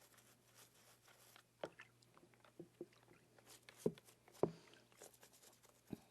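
A deer skull being scrubbed and handled: faint brushing and rubbing noises broken by scattered light knocks and clicks of bone, the loudest two a little under four and about four and a half seconds in.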